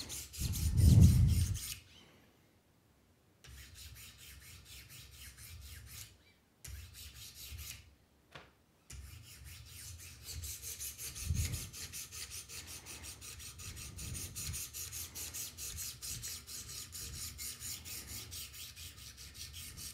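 Coarse 200-grit diamond stones of a Wicked Edge guided sharpener rasping along a knife edge in quick repeated strokes. There is a heavy low bump about a second in and two brief pauses before the strokes run on steadily.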